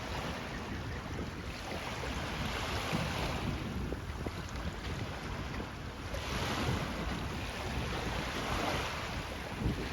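Wind buffeting the microphone over water rushing and splashing beneath a windsurf board under sail, a steady noisy rush that swells about three seconds in and again from about six to nine seconds.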